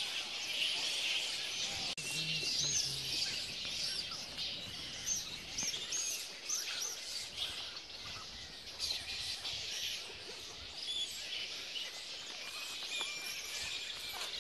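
Flying fox colony calling: a dense, steady chatter of high-pitched squeals and chirps from the roosting bats.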